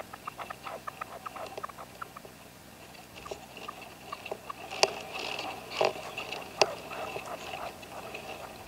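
Caged decoy red-legged partridge (reclamo) calling: a run of short, quick clicking notes. A thin steady high note runs through the middle, and a few sharper, louder notes come in the second half.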